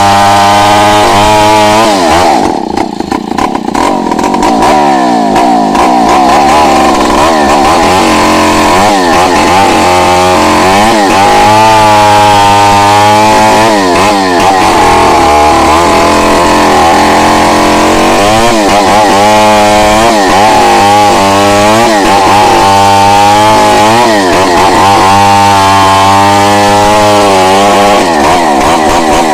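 Chainsaw running at high revs, ripping lengthwise through a log; its pitch wavers up and down as the engine labours under the cut. It eases off briefly about three seconds in, then runs on under load.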